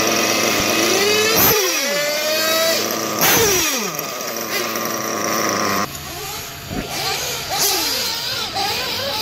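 Nitro glow engines of 1/8-scale RC cars: a steady, high-pitched idle up close that stops suddenly about six seconds in, while other cars rev and whine, their pitch sweeping up and down as they pass.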